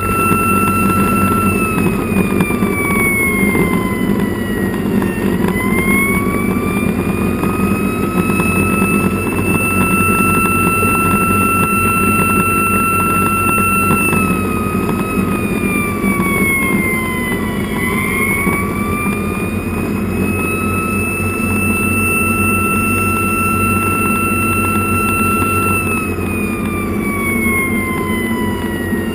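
Fire engine's siren wailing slowly, holding a high pitch for long stretches and dipping and rising again three times, over the truck's engine and road noise heard from inside the cab.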